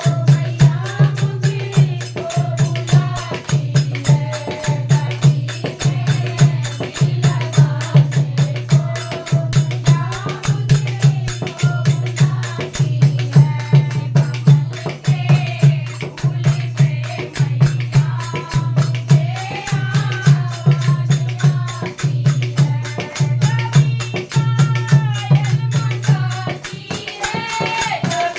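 Devotional Hindi bhajan music: a melody over a steady, fast drum beat with rattling hand percussion.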